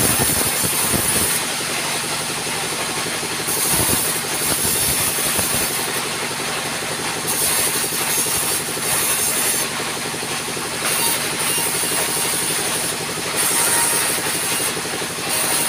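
Table-mounted circular saw running steadily while boards are fed through it. High-pitched cutting passes come and go every couple of seconds over the machine's constant running.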